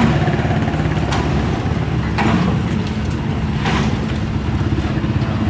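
Vehicle engine running steadily close by, a continuous low hum, with a few faint clicks over it.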